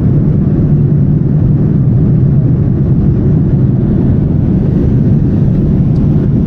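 Steady low cabin noise of a Boeing 787 Dreamliner in flight: engine and airflow noise heard inside the passenger cabin, unchanging throughout.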